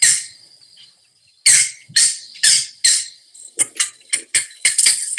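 Recorded green heron calls: several harsh, loud calls about half a second apart, then, about three and a half seconds in, a quickening run of short clucking notes.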